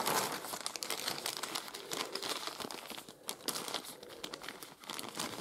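Clear plastic zip-lock bags crinkling and rustling as they are handled and shuffled, a continuous irregular crackle.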